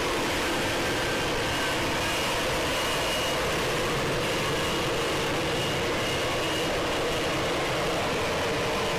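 Lockheed Martin F-35B's Pratt & Whitney F135 jet engine running at a steady, even level, with a faint whine that comes and goes over the noise.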